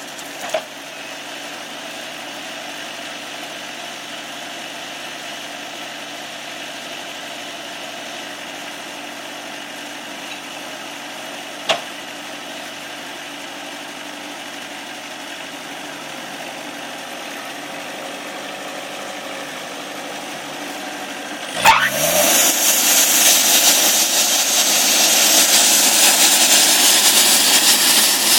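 Portable sawmill's engine idling steadily, with a couple of sharp clicks. About three-quarters through, a sharp knock and the machine comes up to full speed, running much louder with a strong hiss.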